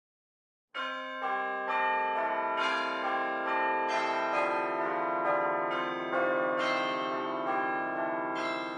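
Bell-like chiming music, with struck notes coming about twice a second over held lower tones. It starts just under a second in.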